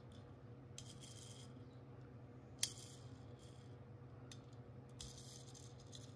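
Faint clicks and light rattling from a small die-cast toy car being handled, with one sharper click about two and a half seconds in, over a steady low hum.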